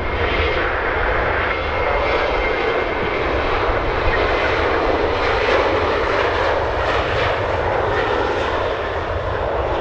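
Jet engines of a taxiing Ryanair Boeing 737: a steady, loud jet whine and rumble at taxi power as the airliner rolls past.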